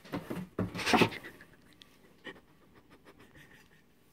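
Cardboard box and packaging rustling and scraping as a hand digs in and pulls out a vacuum cleaner's wand, loudest about a second in, followed by a light click and softer handling noise.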